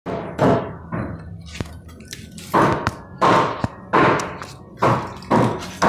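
Repeated heavy blows breaking into concrete or masonry during demolition work, one sharp impact every second or less, with a short pause after the first two.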